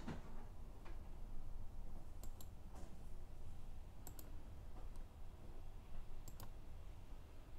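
Computer mouse clicking: three quick double clicks about two seconds apart, over a faint low hum.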